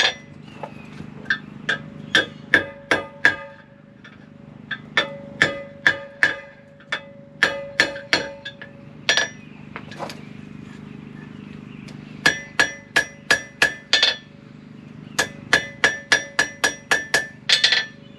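Hand hammer striking hot steel on a Hay Budden anvil, with a bright metallic ring on each blow, while an S hook is forged. The blows come in quick runs of several a second, broken by short pauses.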